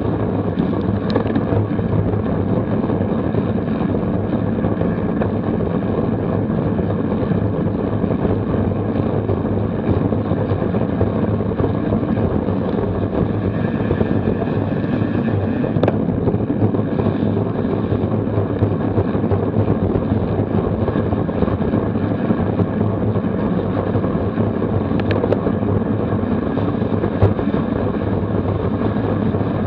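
Steady wind rushing over the microphone, mixed with tyre noise on a wet road, from road bicycles racing in a bunch at about 25 mph.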